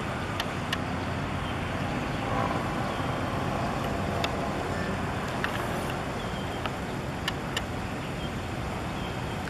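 Steady low rumble of distant engines, with a few short clicks.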